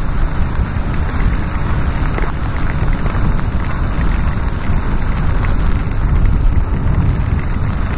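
Steady wind rush and tyre hiss from a Yamaha XTZ 250 motorcycle riding at speed on a wet road in drizzle, with a constant low rumble and no letup.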